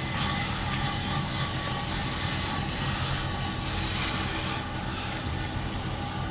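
A steady mechanical drone with an even hiss over it, unchanging throughout.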